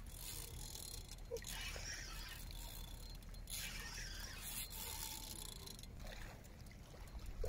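Spinning reel being cranked in a few spells of a second or two, faint, as a hooked sturgeon is played on the rod.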